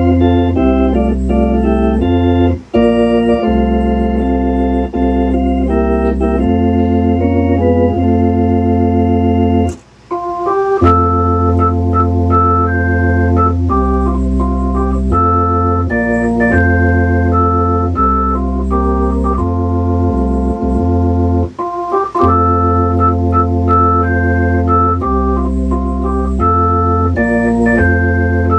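Hammond RT-3 tonewheel organ playing a tune: sustained chords on the manuals over a bass line on the pedals. The music breaks off briefly about ten seconds in. The pedals are working now that their switch actuators have been adjusted to press the contacts.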